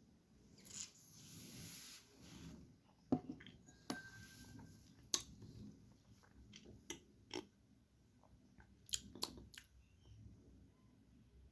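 Faint wet mouth sounds of a whiskey taster working a sip over the palate: a soft breathy draw, then scattered lip smacks and tongue clicks, several close together around nine seconds in.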